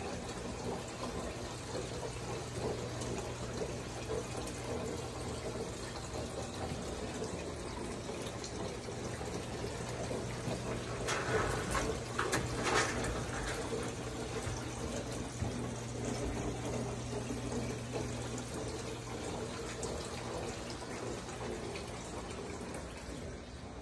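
Water splashing and trickling down a tiered waterfall fountain, steady throughout, over a low steady hum. A few louder, sharper rustles come about halfway through.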